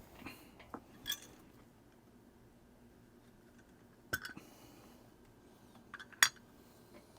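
Small, sharp clicks and clinks of hand tools and watch parts being handled on a workbench as the glass crystal is fitted into a Casio DW-290 case. A few come in the first second, one about four seconds in, and a louder, sharper one about six seconds in.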